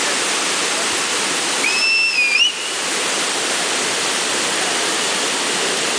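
Waterfall water rushing steadily over rocks. About two seconds in, a brief high whistle-like tone wavers and then rises at its end.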